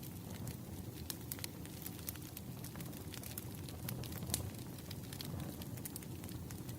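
Firewood burning: a steady low rumble of flames with irregular sharp crackles and pops from the burning logs, one pop a little louder about four seconds in.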